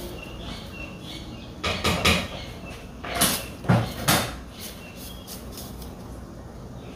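A few short, sharp knocks and scrapes of kitchen work, in a cluster about two seconds in and another three to four seconds in.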